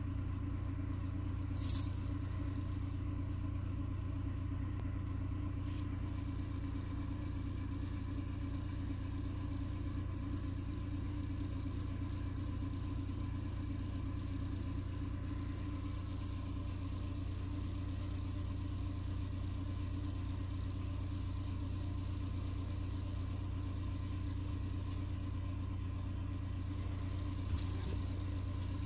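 Steady low mechanical hum, with a faint click about two seconds in and another near the end.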